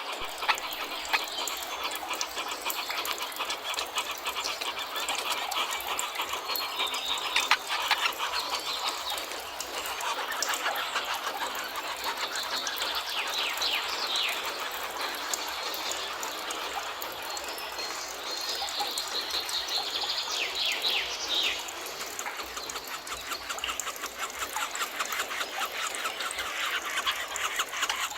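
Forest birds singing and chirping, several calls overlapping over a steady dense background of fast chatter, with bursts of quick sweeping notes twice in the middle.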